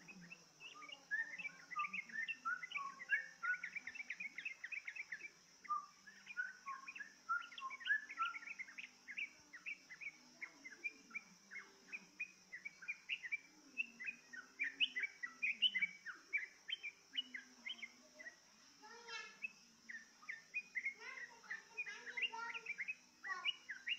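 Yellow-vented bulbuls (trucukan) chattering: a dense, unbroken run of short, quick bubbly chirps and calls, over a steady high-pitched hiss.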